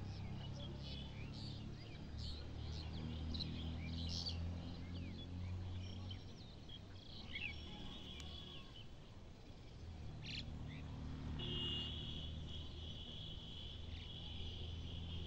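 Outdoor ambience of birds chirping in many short high calls, over a steady low hum. In the second half a steady high-pitched trill comes in and keeps going.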